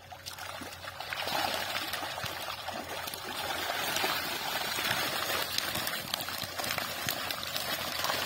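Many fish thrashing in shallow water trapped in a net, a continuous mass of splashing that grows louder about a second in.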